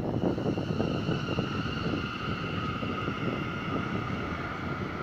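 New York City Subway J train pulling out and moving away: wheels rumbling on the rails under a steady electric whine of several high tones from its traction motors, slowly fading as it goes.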